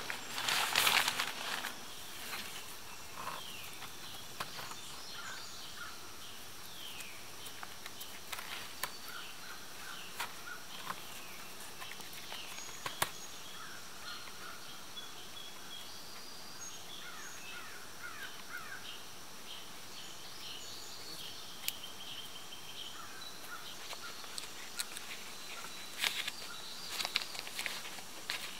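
Woodland ambience: a steady high insect buzz with scattered short bird chirps. Brief rustles of a plastic tarp and cord being handled come about a second in and again near the end.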